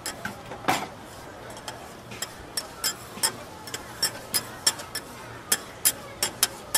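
Metal spatulas clinking and tapping on a flat steel teppanyaki griddle while tossing scallops and onions in sauce, in irregular sharp strikes about two to three a second, with one heavier knock under a second in. A steady sizzling hiss of the hot griddle runs underneath.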